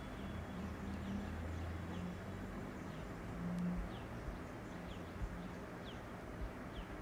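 Faint background hum and hiss, with a short high falling chirp repeating about once a second.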